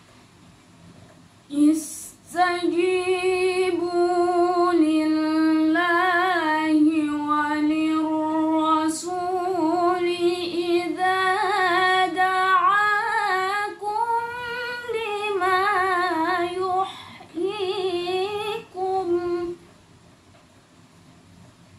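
A woman reciting the Quran solo in the melodic, ornamented style of a tilawah competition: one long sustained phrase sung with wavering pitch turns, beginning about two seconds in, with a brief break for breath near the end of the phrase.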